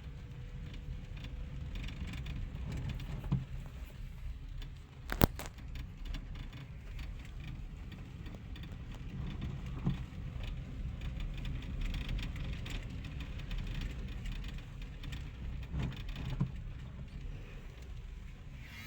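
Heavy rain falling, with the steady low rumble of road vehicles. A sharp knock comes about five seconds in, with a few softer knocks at other points.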